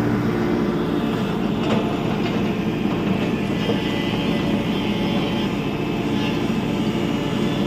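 Tata Hitachi EX70 Super Plus excavator's diesel engine running steadily while working, with a faint knock about two seconds in.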